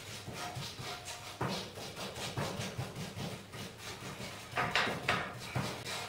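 Old worn-bristled paint brush sweeping ash inside a cast-iron stove's firebox, rapid scratchy strokes about four a second, with a few louder knocks about a second and a half in and near the end.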